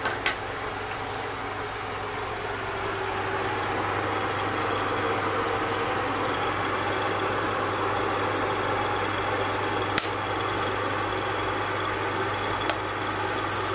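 Induction cooktop running under a pot of heating oil: a steady low electrical hum with a fan-like whir that grows a little louder a few seconds in. A few light clicks come through, one about ten seconds in.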